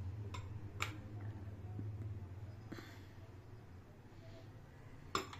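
A spoon clinking against a sauce bowl and a glass baking dish: three sharp clicks, the loudest near the end, with a softer scrape in between, over a low steady hum.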